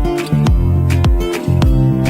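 Background music with a steady beat: kick drums and plucked guitar notes.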